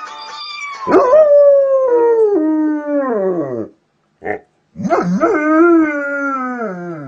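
A dog howling: two long howls that slide downward in pitch, with a short yelp between them.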